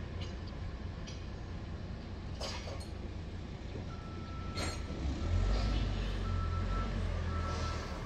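Heavy construction equipment's diesel engine rumbling, growing louder about halfway through, with two sharp metal clanks of steel grates and a backup alarm beeping about once a second through the second half.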